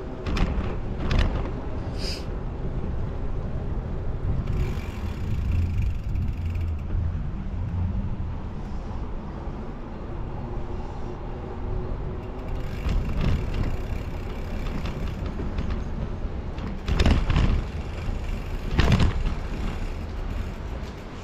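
Uneven low rumble of wind and road noise on a moving camera's microphone, with a few sharp knocks and rattles: a couple about a second in, and two louder ones near the end.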